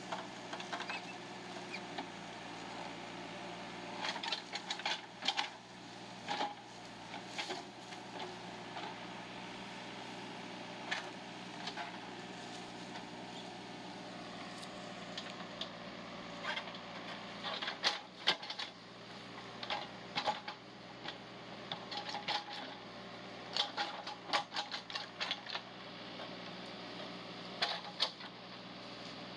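JCB 3DX backhoe loader's diesel engine running steadily while the backhoe digs, with repeated clusters of sharp clicks and knocks from the arm and bucket working in the soil.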